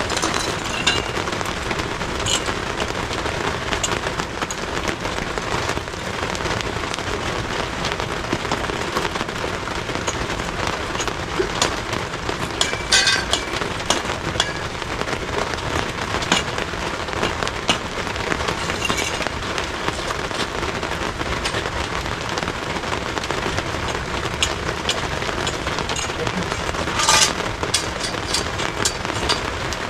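Steady pouring rain, with scattered sharp taps and knocks throughout and two louder knocks, one about halfway through and one near the end.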